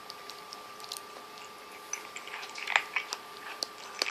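Cat eating: irregular small crunches and wet clicks of chewing and lapping, growing busier about two seconds in.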